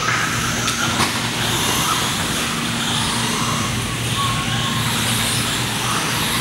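Small electric Losi Mini-T RC trucks racing on a clay track: a steady whir of motors and tyres, with whines that rise and fall in pitch as the trucks speed up and slow down. A sharp click about a second in.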